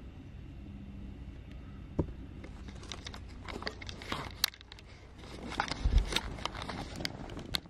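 Rustling, crinkling and clicking handling noise as the camera is picked up and moved. There is one sharp click about two seconds in, busier rustling after that, and a dull thump about six seconds in.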